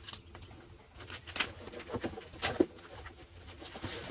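Plastic packaging being pulled and torn off new roof-rack trim pieces: irregular crinkling and crackling with a few sharper snaps about one and a half, two and two and a half seconds in.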